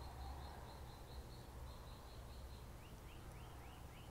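Faint bird calls: a quick string of short high chirps, then from about three seconds in a series of short rising notes, about three a second, over a low steady rumble.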